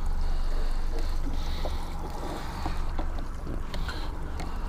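Steady low rumble of a boat's motor running while trolling offshore, with wind noise on the microphone and a few faint knocks.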